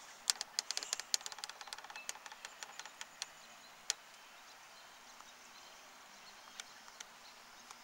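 A quick run of faint clicks and ticks, dense at first and thinning out over about four seconds, over faint steady outdoor noise.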